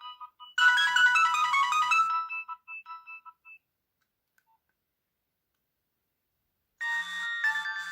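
Nokia 6030 mobile phone playing a ringtone tune through its small loudspeaker; the tune fades out in a few trailing notes about three and a half seconds in. After about three seconds of silence, a different ringtone starts near the end.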